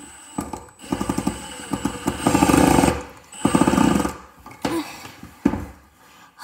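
Milwaukee M18 FUEL FID2 impact driver, set to its fastest mode 3, driving a screw into wood. It hammers in two bursts of rapid impacts, the first about two seconds long and the second shorter, with a high whine from the tool and a couple of single knocks after. The user says this speed is too fast for the bit.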